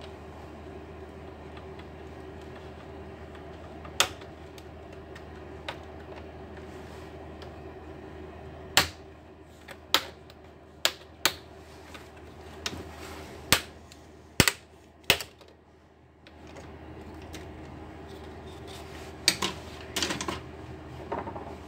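Plastic clips of an Acer Nitro laptop's screen bezel clicking and snapping as the bezel is pried off: a dozen or so sharp, irregular clicks, busiest from the middle on and again near the end, over a steady low hum.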